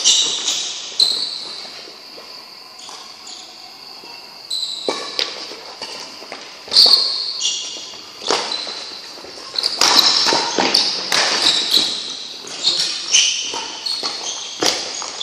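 Badminton rally: rackets strike the shuttlecock with sharp cracks and court shoes squeak on the court floor, echoing in a large hall. The hits and squeaks are busiest in the second half.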